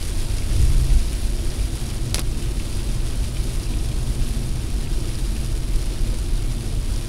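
Car driving through rain at about 80 km/h, heard from a dashcam inside the cabin: a steady low road and wind rumble with rain hissing on the windshield, and one brief click about two seconds in.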